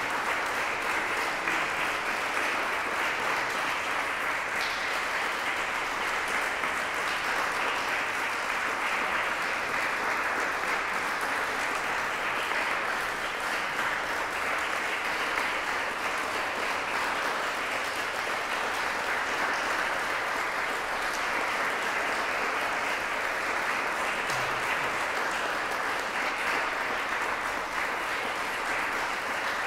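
Applause from a small seated audience, steady and unbroken.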